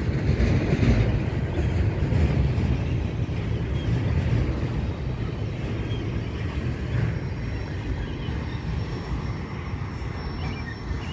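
Double-stack intermodal container well cars rolling past on the rails in a steady low rumble. The rumble gradually fades as the last car goes by and the train moves away.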